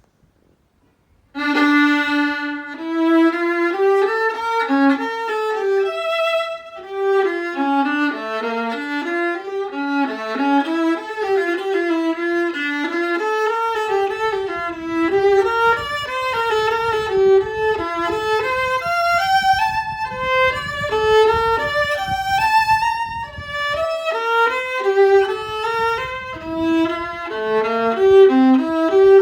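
An old Karl Höfner violin played solo with a bow: a flowing melody of quick notes that begins about a second in and runs on without a break.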